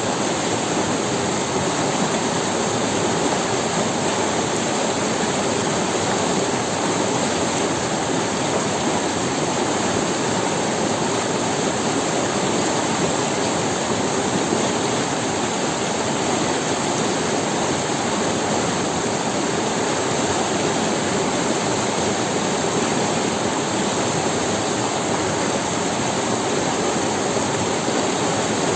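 Forest river running down over stones: a steady, even rush of water.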